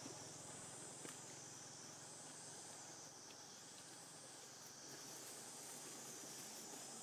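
Faint high-pitched insect chorus swelling and easing in slow waves over quiet forest ambience, with a soft tick about a second in.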